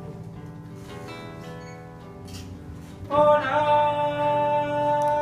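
Live band music: acoustic guitar rings softly between sung lines, then about three seconds in a loud, steadily held note comes in.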